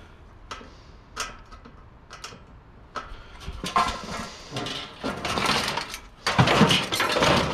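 Clicks and knocks from a water cooler being taken apart by hand. After about three seconds they build into louder clattering and scraping as the unit's panels and parts are handled and shifted.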